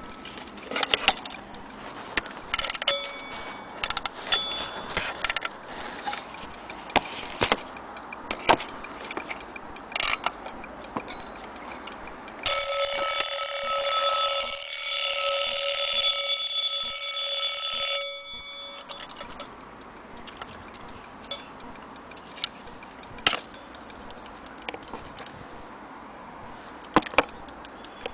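Brass French cage alarm clock movement: scattered clicks and knocks as it is handled, then about halfway through its alarm bell rings continuously for around five seconds and cuts off suddenly.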